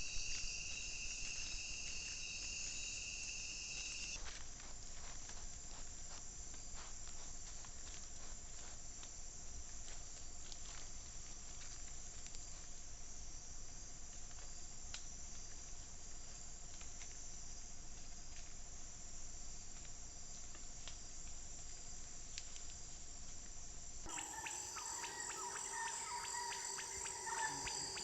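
Rainforest insect chorus: a steady, high-pitched drone of insects with faint scattered ticks and rustles. Near the end it changes abruptly to a denser chorus with more varied calls.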